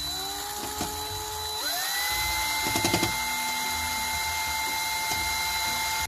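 Electric power drill running: its motor whine rises in pitch as it speeds up, steps up again about a second and a half in, then holds steady over a hiss, with a few clicks about three seconds in.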